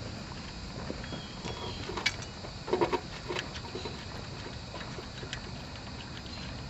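A few scattered light clicks and clinks of hand tools and small metal parts being handled during wrenching, the clearest about three seconds in, over a steady background hiss.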